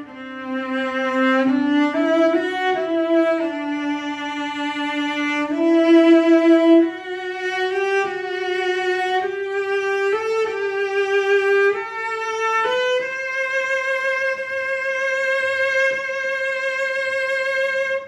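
An 1840s Mittenwald antique cello bowed solo, playing a slow melody high on its range, one note at a time with vibrato. The line climbs and closes on one long held high note of about five seconds.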